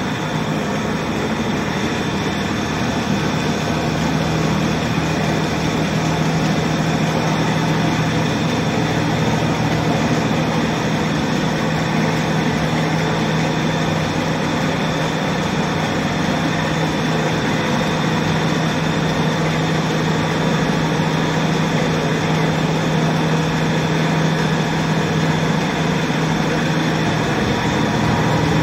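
Belt-driven Maharaja atta chakki (flour grinding mill) running, a steady machine drone with a strong low hum and a dense even whirr.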